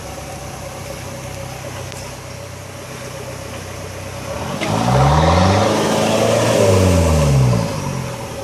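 4x4's engine running at a steady low speed, then revving up about halfway through. It holds there for a couple of seconds and drops back to a lower speed near the end.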